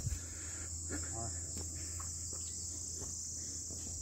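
Steady, high-pitched chorus of insects such as crickets or cicadas, with no break.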